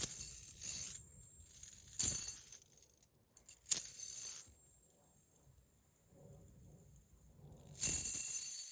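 Titanium fidget spinner giving four short metallic clinks as it is flicked and handled. Each leaves a thin high-pitched ring that hangs on for a few seconds. That ringing note is typical of this solid titanium spinner.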